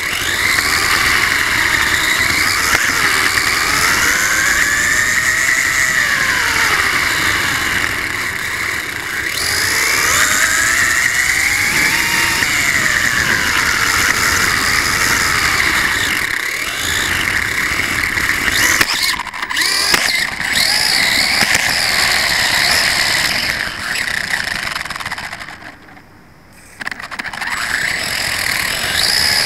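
Brushless electric motor of a Losi 1/24-scale RC car whining, its pitch rising and falling again and again as the car speeds up and slows, over a rumble of the small tyres and chassis on rough paving, picked up by a camera riding on the car. Near the end the sound drops away for about a second, then picks up again.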